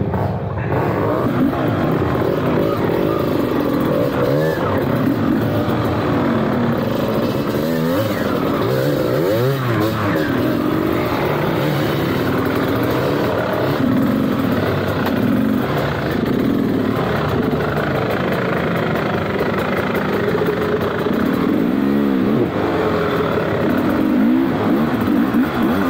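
Dirt bike engine running under riding load, its revs rising and falling again and again as the throttle is worked.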